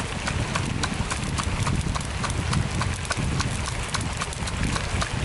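Pestle pounding in a small mortar, a steady, rapid run of knocks with dull thuds beneath.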